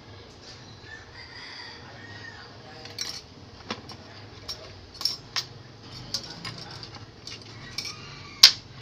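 Small steel tools being set down and handled on a wooden workbench: a string of sharp clicks and taps, the loudest near the end. Chickens cluck faintly in the background.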